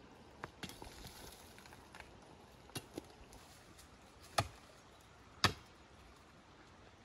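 Footsteps on loose shale, then a few sharp knocks and clinks of shale slabs against rock as they are worked loose from a rock face. The two loudest knocks come about four and a half and five and a half seconds in.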